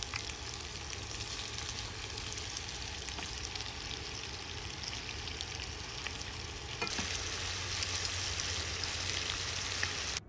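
Cubes of beef searing in hot oil in a frying pan, a dense crackling sizzle, with occasional clicks as metal tongs turn the pieces. The sizzle grows louder about seven seconds in.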